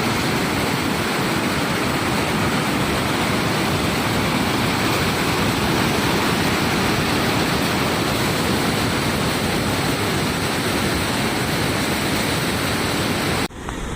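Loud, steady rushing of water, with no pitch or rhythm, that cuts off suddenly near the end.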